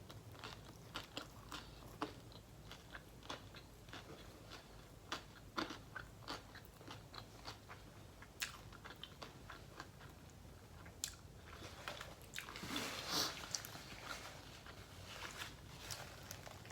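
Close-miked chewing of a saucy Subway sandwich topped with nacho cheese Doritos: crunching and wet mouth clicks, with a louder, denser stretch about twelve seconds in.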